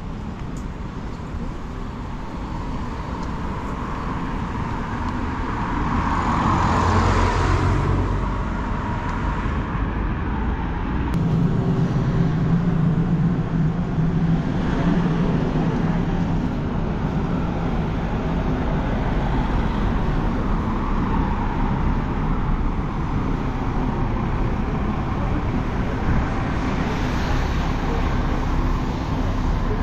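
Street traffic: cars going by, one passing close about seven seconds in, and a vehicle engine humming steadily for several seconds from about eleven seconds in.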